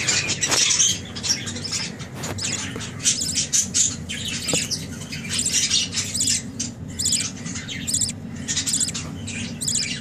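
Budgerigars chirping and chattering, a constant run of short, overlapping high chirps.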